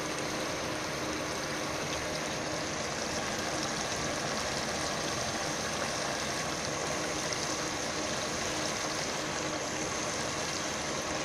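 Steady sizzling and hissing of French beans, potato and brinjal cooking in a pan over the stove flame.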